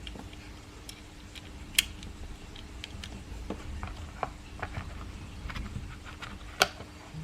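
Small clicks and taps of a miniature AR-15/M4A1 replica being handled, with a sharp click about two seconds in and a louder one near the end, over a steady faint hum.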